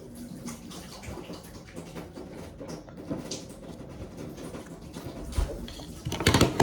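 A blob of clear slime being scooped and handled by hand: soft, sticky squelching and crackle, with a louder burst near the end.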